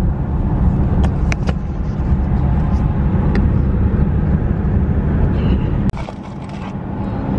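Cabin noise of a moving car: a loud low rumble of road and engine noise, with a few faint ticks. About six seconds in it suddenly drops to a quieter, steady low hum.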